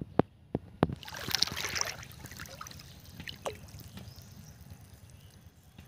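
A few sharp knocks, then a burst of water splashing about a second in, fading to faint lapping: a fish hooked on a plastic-bottle float line thrashing and tugging at the surface.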